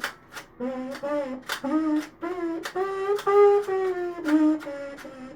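3D-printed plastic trumpet playing a short tune: a run of separate notes climbing to a held high note about three seconds in, then stepping back down, with sharp clicks between notes. It doesn't sound super great, which the player puts down to a lot of air leaks in the printed instrument.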